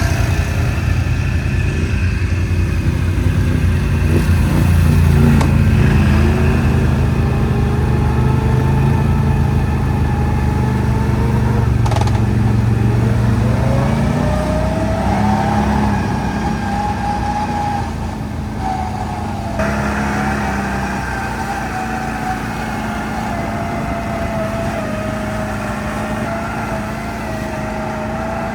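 Can-Am Outlander ATV's V-twin engine running while riding. It revs up about four seconds in, then settles to a quieter, steadier pitch from about halfway.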